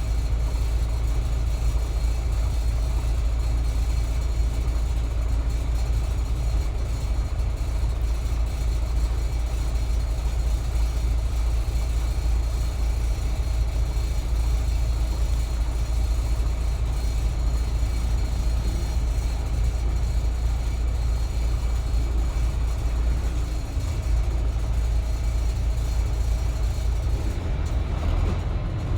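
Tractor-trailer's diesel engine running at low revs, a steady low rumble heard from inside the cab while the truck creeps in slow traffic.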